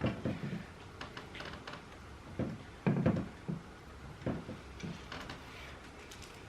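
Irregular knocks and thuds of household objects being handled and set down, the loudest cluster about three seconds in.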